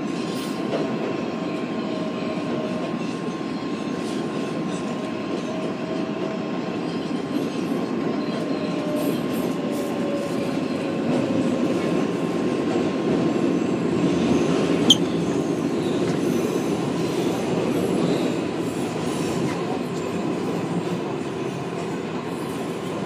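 R188 subway car running between stations, heard from inside: a steady rumble of wheels on the rails, with faint drawn-out wheel squeals in the first half and a constant thin high tone. A single sharp click about fifteen seconds in.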